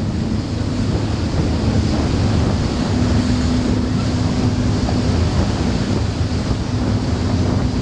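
Powerboat engines running with a steady low drone and hum, mixed with wind buffeting the microphone and the wash of churned water.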